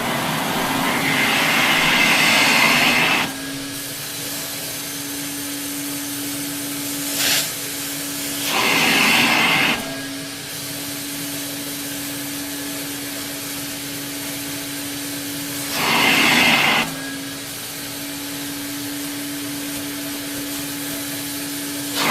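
Vintage Sterilaire (relabeled 1950s Eureka Roto-Matic) canister vacuum with a Lamb electric motor running: a quiet, steady motor hum under the sound of air rushing through it. The air rush swells louder four times, for a second or two each, while the hum's pitch drops a little.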